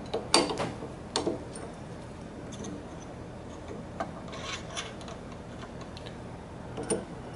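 Hands working at a drill press chuck to free a 6mm chucking reamer: two sharp metallic clicks within the first second and a half, then light scattered clicks and rubbing.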